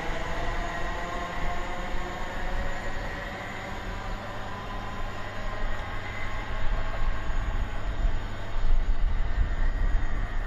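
Class 387 electric multiple unit pulling away and accelerating, its traction motors giving a whine of several steady tones that fades as the train draws off, over wheel-on-rail rumble. A low rumble grows louder near the end.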